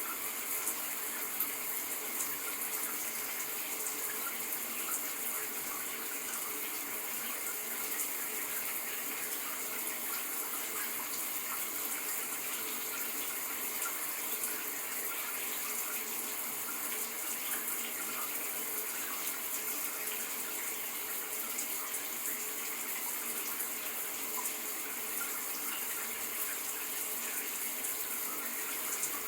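Shower running steadily, a constant hiss of water spraying and splashing down.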